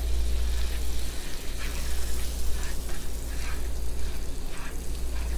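Butter and brown sugar sizzling in a nonstick frying pan while a slotted spatula stirs and scrapes through them in repeated strokes. A steady low hum runs underneath.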